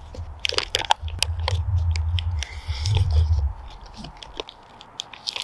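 Foil-lined pasta pouches crinkling as forks dig into them, with chewing on noodles. A low rumble runs under it for the first three and a half seconds or so.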